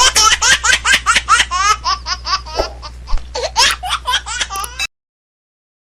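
A person laughing hard in a quick run of high-pitched laughs over a steady low hum. The laughter cuts off abruptly about five seconds in, leaving silence.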